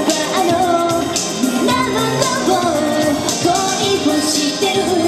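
A woman singing a pop song live into a handheld microphone, her voice carried on long, gliding held notes over backing music with a steady beat.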